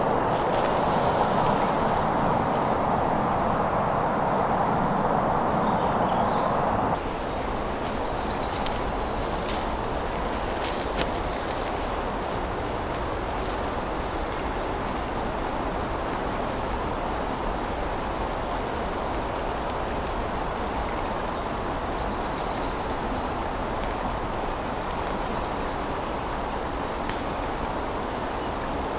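Stream running, a steady rush of water, for the first seven seconds or so. It then cuts off suddenly to a quieter outdoor background, with small birds singing in repeated high chirping phrases.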